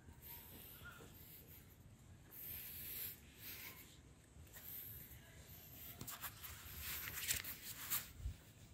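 Faint rubbing and scuffing from a handheld phone being carried while walking, in irregular bursts, with a cluster of sharper scuffs near the end.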